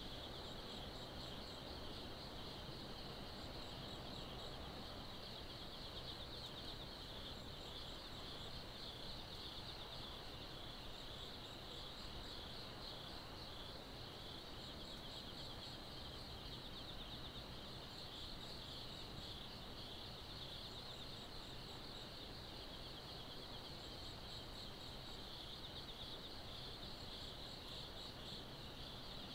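A chorus of night insects: a steady, shrill, finely pulsing trill, with a short run of higher chirps about every two seconds, over a faint low background rumble.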